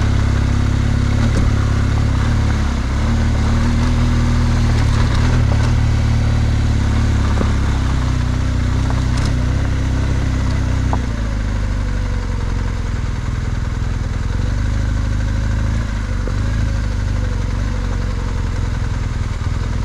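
BMW R1200GSA's boxer-twin engine running at low revs as the bike climbs a loose gravel track, with stones clattering under the tyres. About halfway through, the engine note drops as the throttle is eased.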